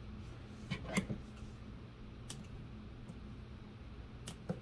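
A few light taps and clicks of hands pressing a cardstock layer into a shadowbox frame, clustered about a second in and again near the end, over a steady low hum.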